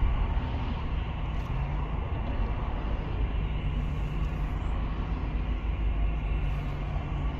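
A car driving on the road: a steady low rumble of engine and road noise, with no sudden events.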